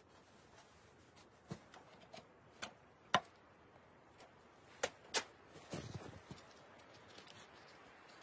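Handling noises from working with gear on a fire mat: a handful of sharp, separate clicks and knocks over the first five seconds, then a short rustling scrape about six seconds in.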